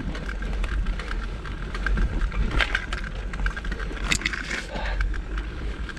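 Mountain bike being ridden along a trail: tyres running over the ground, with many scattered clicks and rattles over a steady low rumble.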